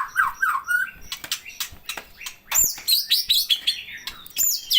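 A songbird singing: quick chirps and clicks in the first half, then from about halfway a run of high whistled notes that sweep down in pitch, mixed with fast trills.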